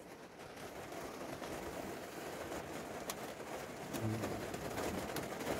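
Heavy rain pouring down in an even hiss that swells slightly, with a few sharper drop ticks.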